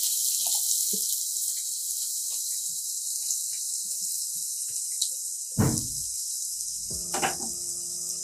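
Chopped onions sizzling as they go into hot oil in a nonstick kadai, scraped in from a steel plate. Two knocks in the second half, the louder one about two-thirds of the way through, the second with a short ring.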